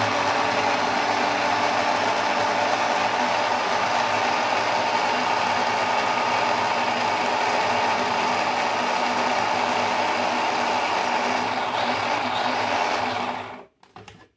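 Electric mini food chopper running steadily, its blade grinding boiled chicken fine. The motor cuts off about a second before the end, followed by a couple of faint knocks.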